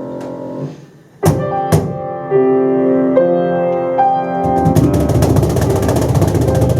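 Piano and percussion playing a lively instrumental live. A held piano chord breaks off about a second in, two sharp accented hits follow, then piano lines come back, and from about two-thirds through the percussion drives a fast, dense rhythm under them.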